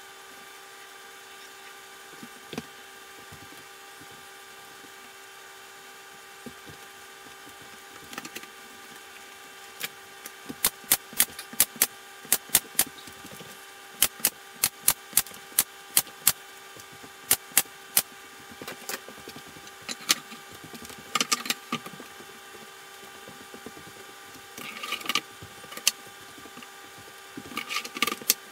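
Sharp knocks on wood over a steady hum: a quick run of strikes, two or three a second, through the middle, then scattered knocks and short clatters near the end.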